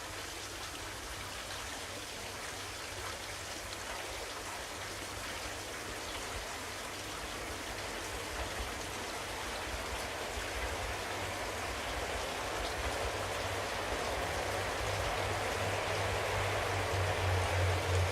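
Steady rushing noise that grows gradually louder, with a low engine hum building near the end: a KiHa 40 diesel railcar approaching along the line.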